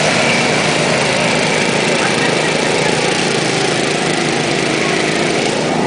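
Several riding lawn mower engines running together, a steady, dense mechanical drone.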